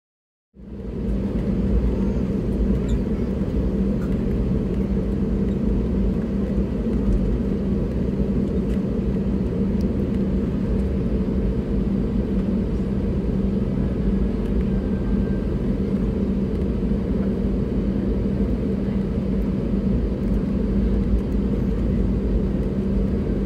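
Cabin noise of an Airbus A320neo taxiing: a steady low rumble from the engines at idle with a steady hum. It cuts in about half a second in, after a brief gap.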